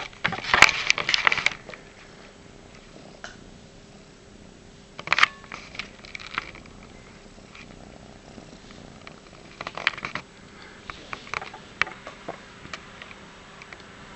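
Black-and-white cat purring steadily close to the microphone, broken by short rustling and scuffing bursts as the cat shifts on the bedding, loudest in the first second and a half and again around five and ten seconds in.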